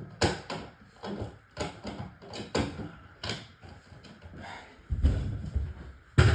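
Handling noise: a string of irregular knocks and clicks, with heavier low thumps near the end.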